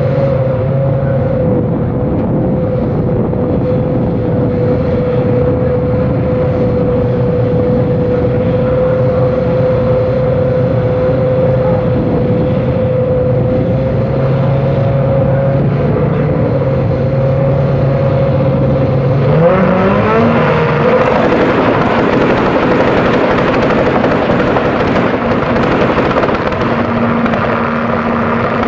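A grid of British Touring Car Championship race cars running on the start line with their engines ticking over. About two-thirds of the way in, the engines rev up together with a rising whine and hold at higher revs, waiting for the start.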